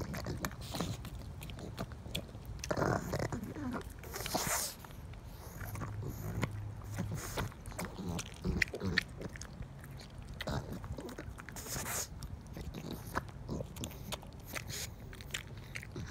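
A pug chewing and biting into a ripe tomato: many irregular clicks of jaw and mouth, with a few louder rushes of noise about three to four seconds in and again near twelve seconds.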